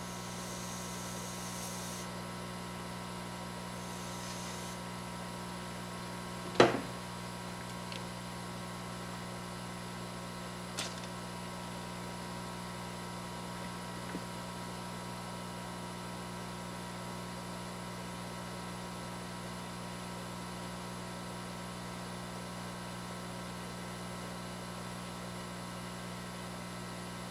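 Steady electrical mains hum, with one sharp click about six and a half seconds in and a few faint ticks after it.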